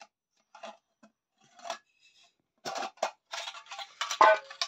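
Stainless-steel lunch boxes being opened and handled: scattered clinks and scrapes of steel lids and containers against each other, sparse at first and busier in the second half, with one clink ringing briefly near the end.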